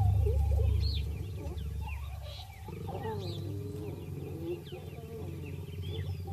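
Mating leopards growling, a low rasping growl, with birds chirping throughout. A loud low drone at the start fades away in the first second or so.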